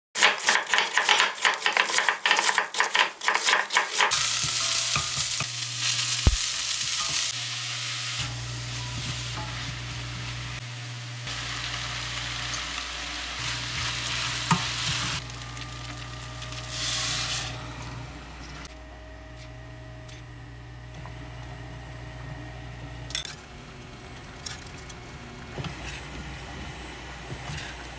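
Food sizzling and frying in a pan while being stirred, over a steady low hum. The first four seconds hold rapid clicking strokes, and the sizzle grows quieter in the second half.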